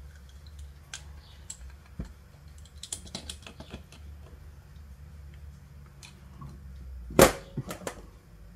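Light metallic clicks and taps of a wrench and small carburetor parts being handled on a workbench, with one sharp, much louder knock about seven seconds in, then a few lighter taps.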